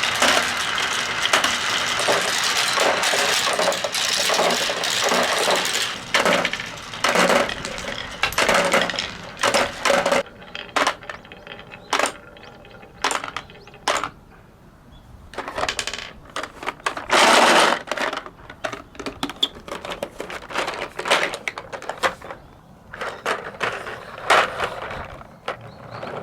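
Marbles clattering down a wooden HABA marble run: a dense rattle of many clicks for the first few seconds, then scattered clicks and short bursts of clatter with pauses, including one loud flurry past the middle.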